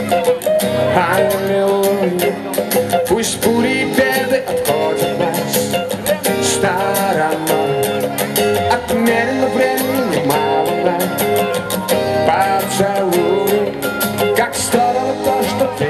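Live pop band music over a PA system: a male vocalist sings over electric bass and band backing, with a steady beat.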